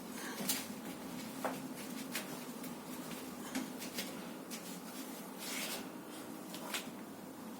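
Rustling and scattered soft clicks from a person shifting and stretching during self back-cracking moves, over a low steady hum.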